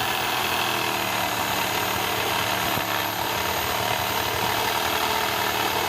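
Power saw running steadily at full speed.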